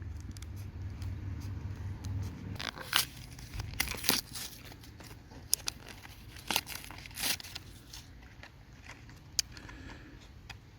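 A flashlight's retail box and packaging being opened by hand: scattered tearing, crinkling and scraping rustles with a few sharp clicks. A low rumble underneath stops about two and a half seconds in.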